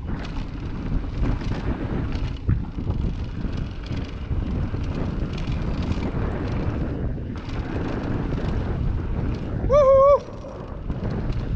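Wind noise on the microphone of a moving mountain bike, with the tyres rumbling over a hard-packed dirt trail. About ten seconds in, a short, loud, high squeal.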